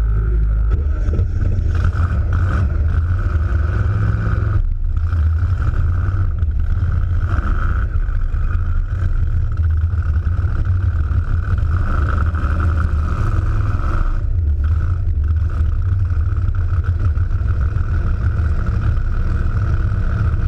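Supercharged big-block Ford V8 in a hot-rod coupe running hard during a burnout, heard close up from an engine-mounted camera. A steady high whine rides over the low engine note and drops out briefly about four and a half seconds in.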